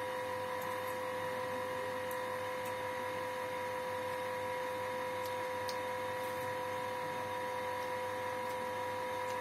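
Steady electrical hum-whine with two held tones, one pitched an octave above the other, over a faint even hiss, with a few faint clicks.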